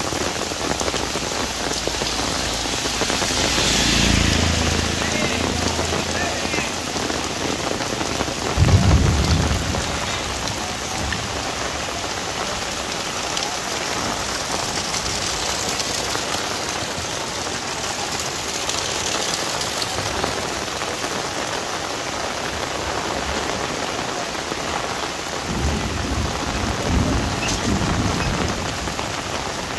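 Heavy monsoon rain pattering steadily on an umbrella and the ground, with low rumbles of thunder a few times. The loudest rumble comes about nine seconds in.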